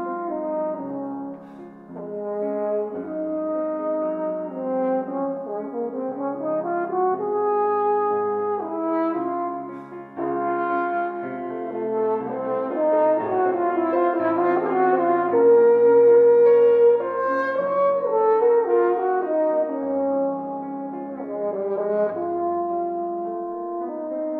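French horn playing a slow, lyrical melody of long held notes, accompanied by a Steinway Spirio grand piano reperforming the recorded piano part. The horn swells to its loudest on a held note a little past the middle.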